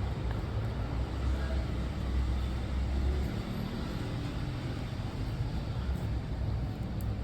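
Steady low background rumble, heaviest for the first three seconds, then easing slightly.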